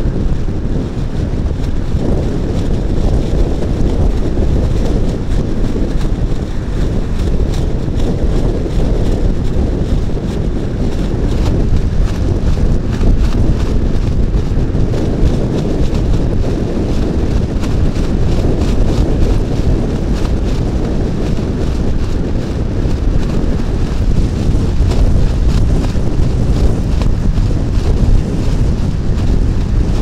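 Gale-force wind of about 40 knots buffeting the microphone in a loud, steady low rumble, over the noise of storm waves breaking on the lake shore.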